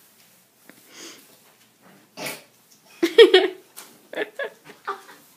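A young woman's breathy, laughing grunts as she strains to pull a sweater off over her head. Quiet at first, then from about three seconds in a run of short, loud bursts, several a second.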